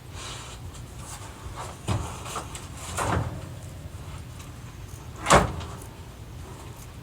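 Scissors cutting the lace of a wig: a few separate short snips and knocks, the loudest about five seconds in.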